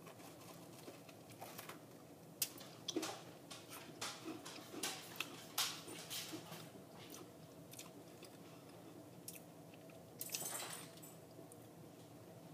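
A person biting into and chewing a s'more made of Pan di Stelle cocoa biscuits, peanut butter and marshmallow. Crisp crunching clicks come through the first several seconds, then the chewing goes quieter, with a brief hiss-like breathy noise about ten seconds in.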